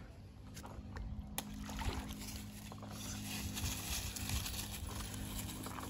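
Lake water sloshing and lapping against a stand-up paddleboard, with a few light knocks, under a low steady hum.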